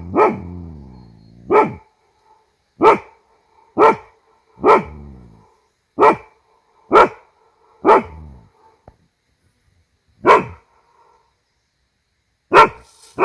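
A dog barking repeatedly, about ten sharp barks roughly a second apart with a pause of about two seconds partway through; several barks trail off in a faint echo. The dog is barking at her own echo, which she takes for another dog.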